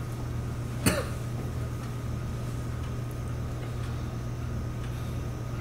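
A steady low hum runs under the recording. About a second in there is one short throat sound from a person, like a cough.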